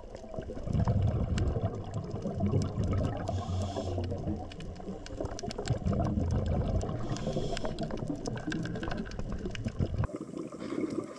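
Underwater sound of a scuba diver breathing through a regulator: a hiss on each inhale about every four seconds, with a rumble of exhaled bubbles between, over a constant crackle of clicks. The sound changes abruptly to a thinner hiss near the end.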